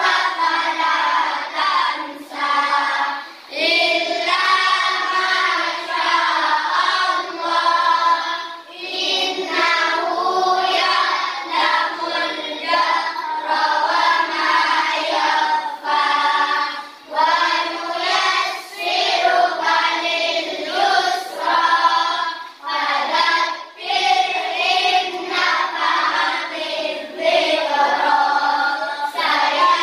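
A group of children singing a song together, in phrases of a few seconds each with short breaths between.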